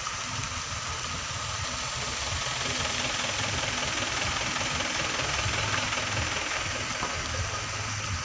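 Engines of vehicles creeping past at low speed, with a Suzuki APV minivan driving by close up and its tyres rolling over a rough dirt road.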